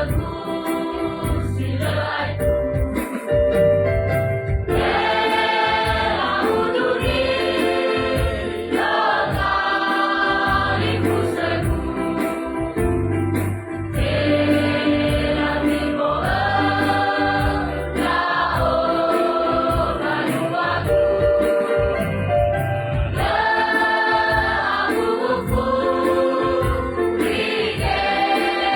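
Choir singing a sacred song, in phrases of a few seconds each.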